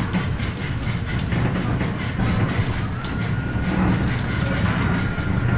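Konstal 105Na tram running along the track, heard from inside its cab: a steady low rumble of motors and running gear with quick rail clatter, and a thin steady whine setting in about three seconds in.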